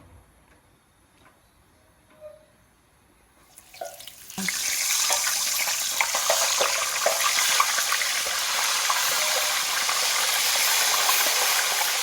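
Hot oil in a deep fryer bursting into a loud, steady sizzle about four seconds in, as food is lowered into it.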